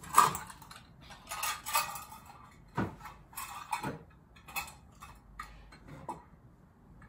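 Brass serving utensils clinking against one another and the metal hooks of a wall rail as they are hung up: a series of irregular metallic clinks, the loudest about a quarter second in.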